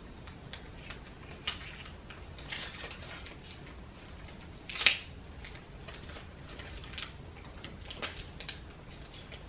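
Faint handling noises from hands working a small object: scattered soft clicks and rustles, with one louder crinkle about five seconds in.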